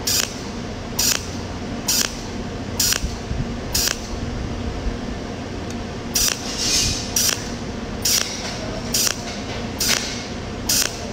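Cold welding machine spot-welding with 0.8 mm stainless steel filler wire, filling a scratch defect one spot at a time. Each weld pulse is a short burst of hiss, about one a second, over a steady low hum.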